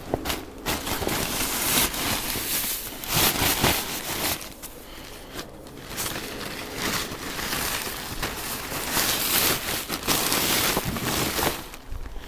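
Plastic tarp crusted with ice being handled, crinkling and crackling in uneven surges.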